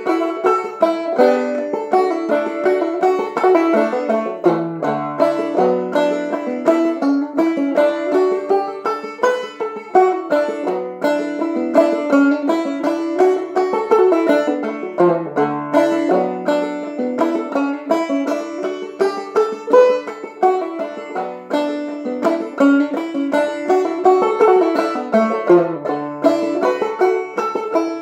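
Solo banjo played clawhammer style: a steady, unbroken stream of plucked notes carrying a lilting tune, with a lower phrase that comes round again about every ten seconds.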